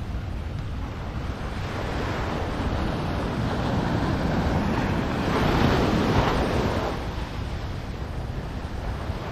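Surf washing onto a beach, one wave swelling over a few seconds and fading, over a steady rumble of wind on the microphone.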